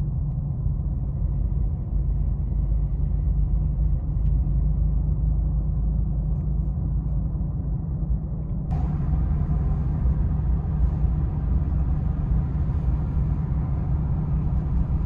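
Pickup truck driving at road speed: a steady low rumble of engine and road noise. About nine seconds in, a hiss joins it higher up.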